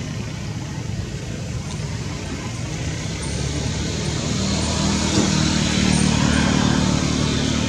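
A vehicle engine running: a steady low hum that grows louder about halfway through.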